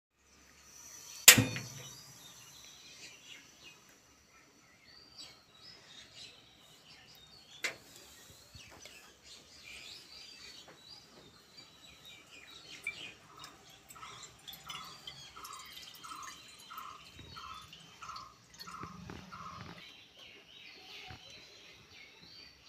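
Birds chirping faintly in the background, with one call repeated about eleven times at under two a second in the second half. A sharp click about a second in, and a smaller one at around eight seconds.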